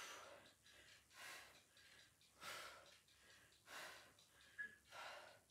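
A woman's hard breathing from exertion during a core exercise: five loud, airy breaths, about one every second and a quarter.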